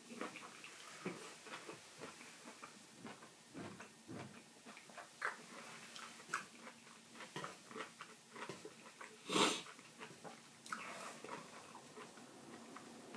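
A person eating hotpot close to the microphone: chewing and scattered small clicks and taps of the meal, with one louder breathy noise about nine seconds in.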